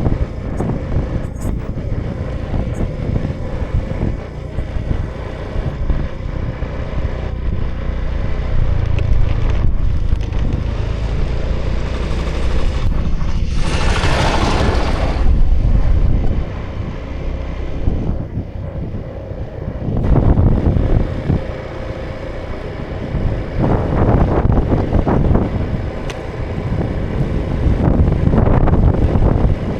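2018 Honda Vision scooter's small single-cylinder engine running at riding speed, with wind rushing on the microphone. A loud rushing noise swells and fades about halfway through.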